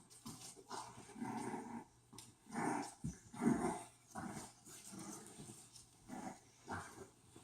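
Mother dog growling in a string of short bursts, the loudest a little past halfway: a warning growl guarding her puppies.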